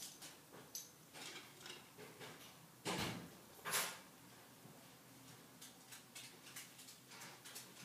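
A dog pacing restlessly on a rug and hardwood floor while left alone with separation anxiety: two short scuffling sounds about three seconds in, then faint clicks of its claws on the floor.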